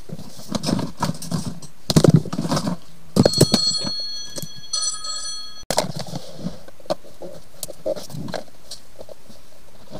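Knocks and rattles of handling, the loudest about two seconds in. From about three seconds in, an electronic ringing of steady high tones plays in two short phrases at different pitches, like a phone ringtone, and stops abruptly.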